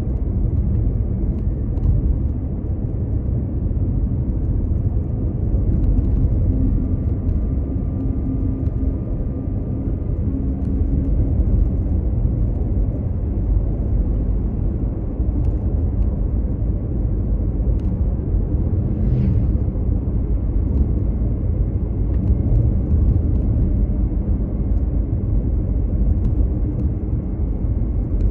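Mazda CX-5 driving along at road speed: a steady low rumble of tyres on tarmac and the engine running, with no change in pace.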